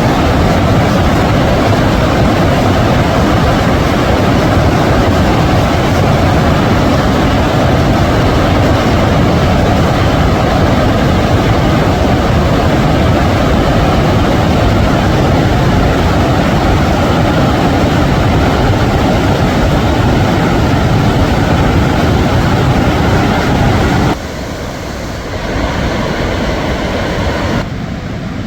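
Large river waterfall, the Khone Phapheng falls on the Mekong: loud, steady rushing of water pouring over rock. Near the end it drops abruptly to a quieter level, then shifts level again.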